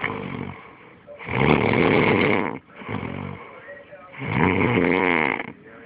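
A person snoring: two long, loud snores about three seconds apart, with fainter snoring sounds between them.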